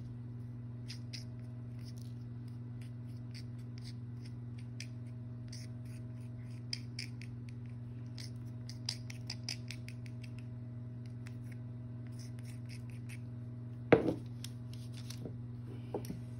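A small spatula scraping and tapping crushed pastel powder out of a small ceramic mortar onto paper, in many quick, light scrapes. There is one louder knock near the end as the mortar is set down, and a steady low hum underneath.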